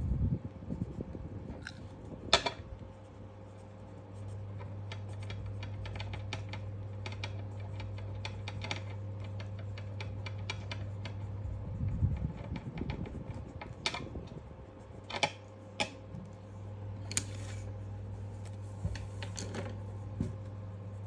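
Watercolour pencil scratching and tapping on sketchbook paper in quick, short colouring strokes, with a few louder clicks, over a steady low hum.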